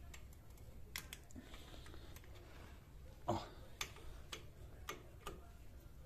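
Light metal clicks and ticks as a thin metal key turns and taps in the small retaining screws of a new brake disc: a few scattered clicks, the loudest about three seconds in.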